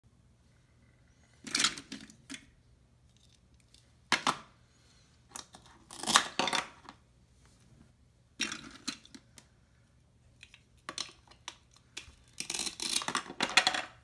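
Velcro on plastic toy food pieces being pulled apart: short rasping tears, about six of them, the longest near the end, with light clicks of plastic pieces being handled.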